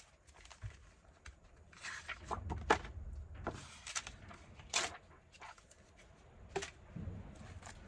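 Scattered light taps, clicks and rustles of paper and card being handled and pressed down on a craft desk.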